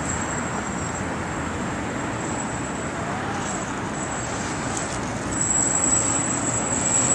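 Radio-controlled speedboat running out on the water: a thin, high motor whine that comes and goes and grows louder about five seconds in, over a steady rush of wind on the microphone.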